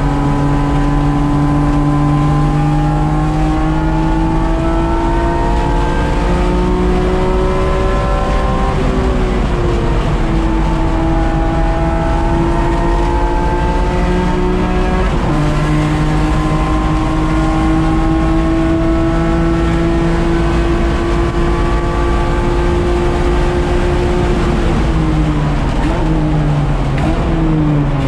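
Race car engine heard from inside the caged cockpit, pulling hard with its pitch slowly rising, an upshift about nine seconds in, then running at a nearly steady high pitch along the straight. Near the end the pitch drops in quick steps as it downshifts under braking for a corner, with road and wind noise throughout.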